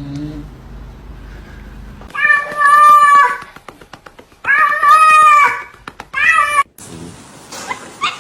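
A cat meowing: three loud, drawn-out meows, the last one shorter.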